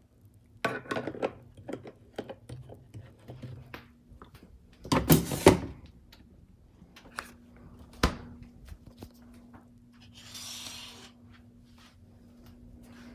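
Kitchen things being handled: a run of knocks and clinks, a louder clatter about five seconds in, a single sharp knock a few seconds later, and a short hissing rush near the end. A steady low hum runs underneath.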